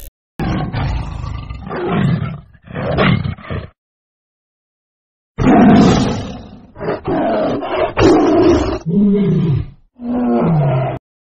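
Leopard roaring and growling: three rough calls, a pause of almost two seconds, then a run of about five more, the last two sliding down in pitch.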